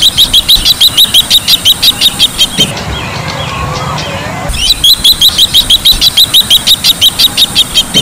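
Bronze-winged jacana calling in runs of rapid, high repeated notes, about six a second. One run ends about two and a half seconds in, and a second run starts some two seconds later.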